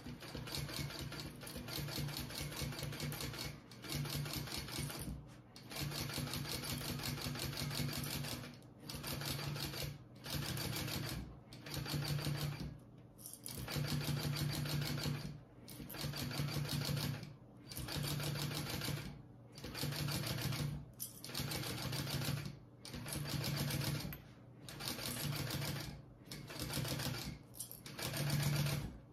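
Kingmax GC0302 industrial sewing machine stitching in short runs of a second or two with brief stops between them, as piping is basted onto a curved vinyl bag panel.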